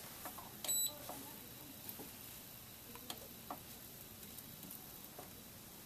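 A single short electronic beep from the IPC Eagle carpet machine's controls a little under a second in, then only a few faint ticks over quiet room tone. No motor sound is heard: the machine runs almost silently.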